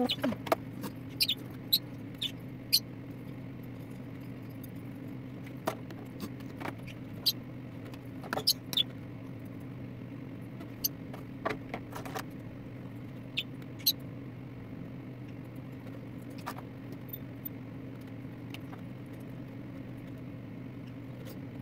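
Small pet parrots giving brief high chirps and squeaks now and then over a steady low hum, with a few light clicks.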